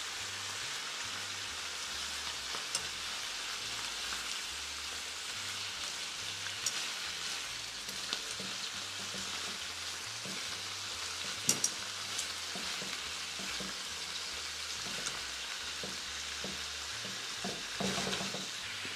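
Chicken pieces browning in hot olive oil in a deep pan, sizzling steadily. Now and then the metal tongs that turn the pieces click and knock against the pan, with a short cluster of knocks near the end.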